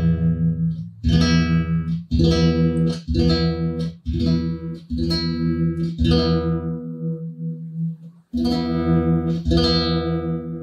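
Yamaha NTX700 nylon-string electro-acoustic guitar heard through its pickup and preamp, one note plucked over and over about once a second and left to ring, loud: a volume check showing the guitar's too-quiet output is fixed.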